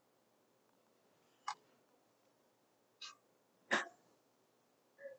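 Four faint, short clicks at uneven intervals, the third, about two-thirds through, the loudest, with near silence between them.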